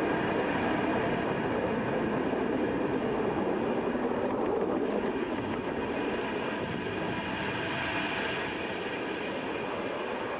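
Falcon 9 first stage's nine Merlin engines firing during ascent: a steady, even roar that eases slightly and turns a little duller about halfway through.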